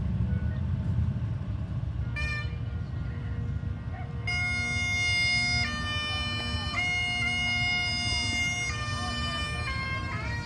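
Highland bagpipes starting up: a brief note about two seconds in, then from about four seconds a slow tune of long held notes over the steady drone. Underneath runs the low rumble of vehicles passing.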